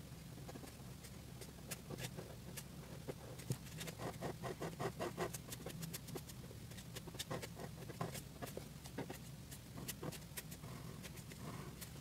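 Black pen nib scratching and ticking on paper as lines are inked in short strokes, with a quick run of rapid strokes about four seconds in. A steady low hum lies underneath.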